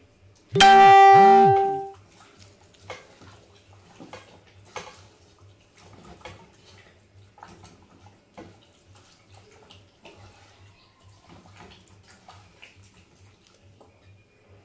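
A loud, steady, buzzy horn-like tone held for about a second and a half near the start. It is followed by faint scattered taps and light knocks from hands working food in a bowl.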